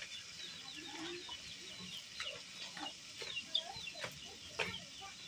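Chickens clucking in a rapid run of short calls, with a few sharp snaps and clicks in the second half.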